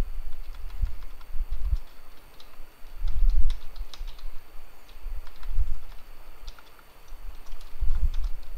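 Typing on a computer keyboard: irregular key clicks, with dull low thumps under them about three seconds in, five and a half seconds in and near the end.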